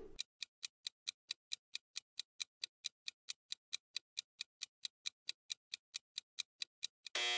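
Clock-ticking countdown timer sound effect, even ticks at roughly four and a half a second, marking the time to answer a quiz question. Near the end it gives way to a short, louder buzzing tone.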